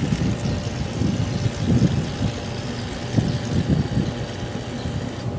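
Aerosol shaving cream dispensed from cans onto paper plates: an uneven, foamy sputter over a steady low hum.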